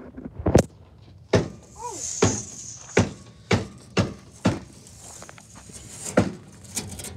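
A string of short thumps and knocks, about one every half second, with a gap in the middle and a brief rising-and-falling chirp about two seconds in.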